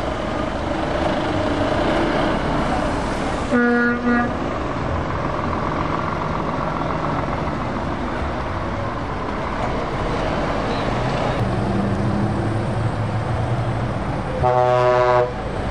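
Diesel truck engines running as lorries drive past, with two truck horn blasts: a short toot with a quick second blip a few seconds in, and a longer blast near the end.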